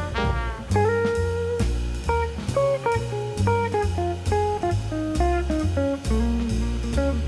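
Background music: jazzy guitar tune with bass and a steady drum-kit beat.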